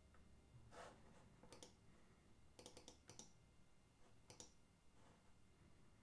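Faint, irregular clicks and taps at a computer drawing desk, some single and some in quick pairs and short runs, over quiet room tone.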